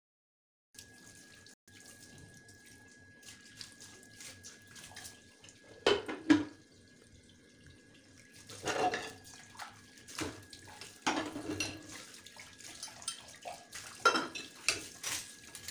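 Kitchen tap running into a sink as china plates and bowls are rinsed, starting about a second in. Plates knock and clink against each other several times, loudest about six seconds in.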